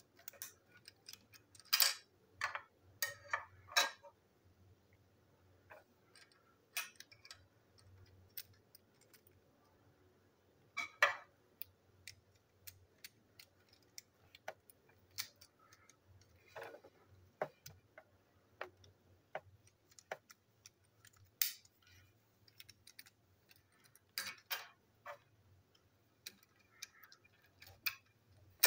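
Small plastic toy-train parts being handled: irregular clicks and taps as the wheel bogie and coupler pieces are fitted together and set down on a table, over a faint steady low hum.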